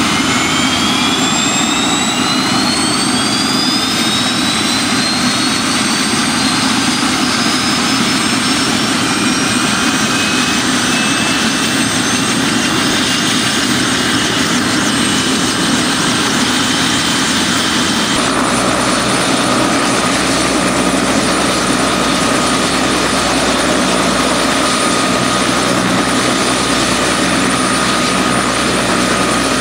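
Bell 206 JetRanger turbine helicopter starting up: the turbine whine rises steadily in pitch for the first several seconds as the engine spools up and the main rotor gathers speed. About two-thirds of the way through a deep rumble comes in and the whine settles to one steady tone as the engine and rotor reach running speed.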